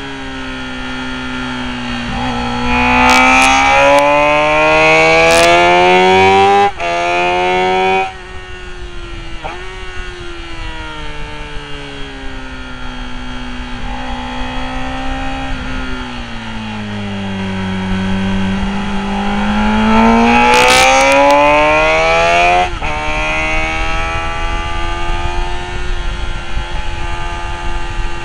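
Sport motorcycle engine heard from onboard at a race track, revving hard through the gears: the pitch climbs twice and drops sharply at each upshift, about 7 and 8 seconds in and again near 23 seconds. Between the two runs the pitch falls slowly as the bike slows through a corner.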